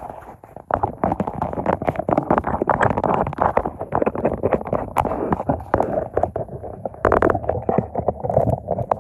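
Loud, crackly storm noise of wind and rain battering an umbrella close over the microphone, a rough rushing with dense sharp clicks and cracks throughout.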